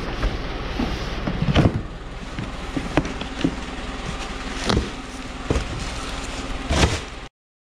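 Cardboard boxes being handled and shifted about, with a handful of short knocks and scrapes over a steady rumble. The sound cuts off suddenly near the end.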